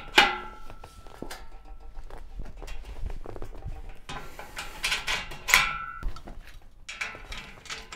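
Long-arm lever hand riveter setting blind rivets through steel box-section tube: handles pumped with clicking and metal clatter. Two sharp snaps, each with a brief metallic ring, come just after the start and at about five and a half seconds in, as the rivet mandrels break off.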